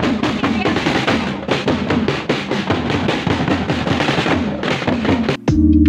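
Marching drum line playing snare and bass drums in a fast, dense run of strokes. Near the end the drumming cuts off abruptly and steady music with held synthesizer notes takes over.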